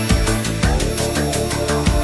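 Background music: an energetic electronic track with a steady beat.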